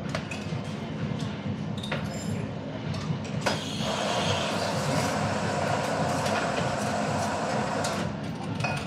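Espresso machine steam wand steaming milk, a steady hiss that starts about three and a half seconds in and cuts off near the end, over café clatter of cups and crockery.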